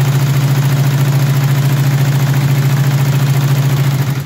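Industrial sewing machine stitching heavy canvas, running steadily at speed with a fast, even stitch rhythm, then stopping near the end.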